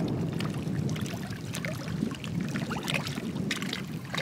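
Shallow water lapping and trickling among oyster-covered rocks: a steady low rush with scattered small clicks and pops.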